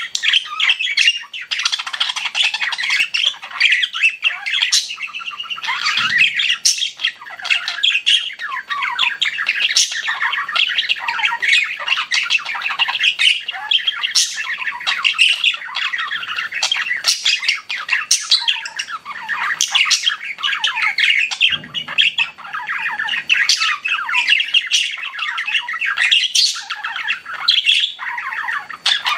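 Pet budgerigars chattering and squawking without a break, a dense warble of many short chirps and squawks.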